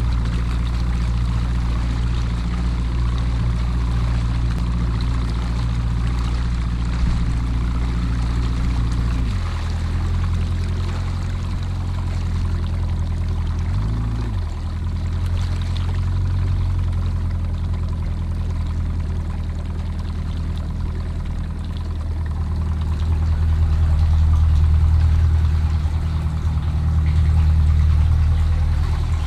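Bass boat outboard motor running slowly at low throttle, a steady low hum. Its pitch drops about nine seconds in, wavers briefly a few seconds later, and it grows louder near the end.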